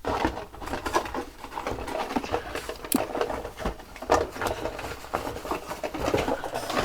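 Irregular clicking, tapping and rustling from handling a plastic hair-styling tool and its attachment heads; no steady blower noise.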